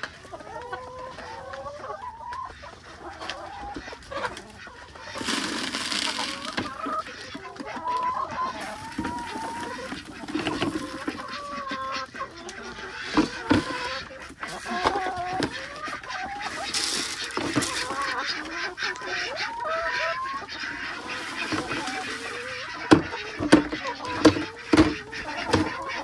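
Flock of brown laying hens clucking busily as they feed, with two spells of rustling and a few sharp knocks near the end.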